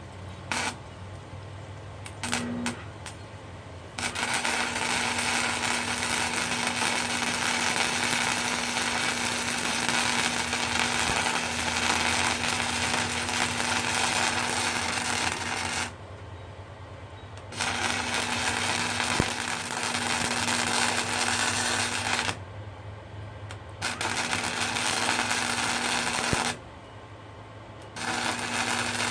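Arc welding a steel gusset: a couple of brief arc strikes, then a steady crackling arc with a low hum for about twelve seconds, followed by three shorter runs of welding with brief pauses between.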